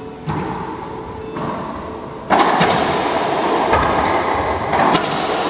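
Sharp cracks of a racquetball struck by racquets and hitting the court walls, several in a few seconds, echoing in the enclosed court. From about two seconds in they sit over a loud steady rushing noise.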